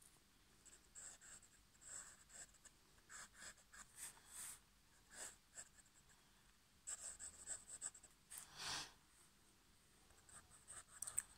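Black ink pen scratching faintly across paper in quick, short sketching strokes, with one longer stroke about nine seconds in.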